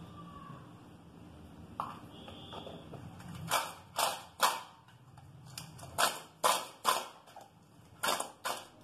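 Cleaned raw crab pieces being rubbed by hand with salt and turmeric in a bowl: about ten short crunching, rustling strokes in an uneven rhythm, starting about three and a half seconds in.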